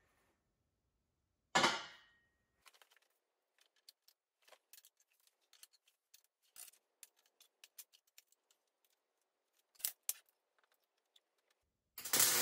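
A steel tube clanks once against metal and rings briefly, followed by a long run of small clicks and taps as the steel frame is clamped and handled. Near the end a welding arc strikes with a loud crackling hiss.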